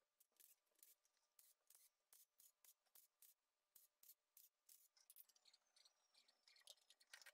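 Near silence, with faint scattered high ticks.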